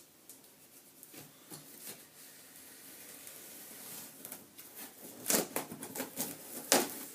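Packing paper crinkling and rustling as it is handled, a scatter of light clicks at first, then several loud crackles about five and seven seconds in.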